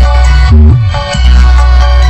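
Electronic dance music with a heavy, sustained bass line, played very loud through a miniature sound system: a small subwoofer box topped by a woofer cabinet and two mid-high cabinets with horn tweeters, driven by a single home-built amplifier.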